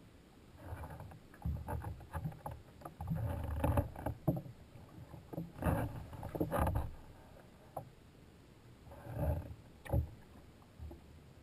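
Sea kayak paddle blades dipping and splashing in the water in irregular strokes, with pauses between them and a sharp knock about ten seconds in.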